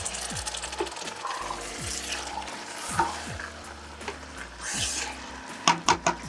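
Egusi soup frying and sizzling in a pot while being stirred with a spoon, with a few sharp knocks of the spoon against the pot near the end.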